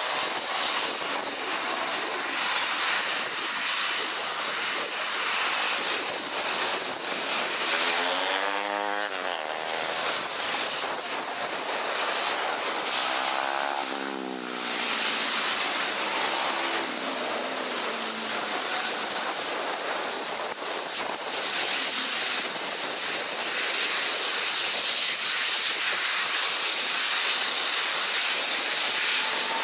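Jet engines of a KLM Boeing 777-300ER running as the airliner rolls along the runway: a steady, broad roar. Twice, at about nine and about fourteen seconds in, the roar takes on a sweeping, phasing whoosh.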